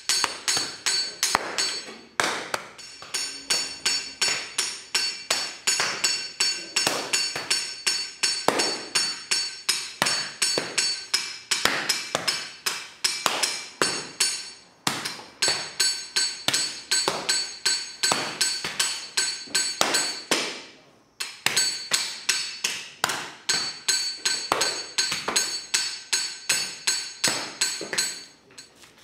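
Wooden paddles beating a large mound of clay, several blows a second from more than one person, to knead and compact it for onggi pottery. The blows pause briefly a few times. A steady high ringing tone sounds over the strikes.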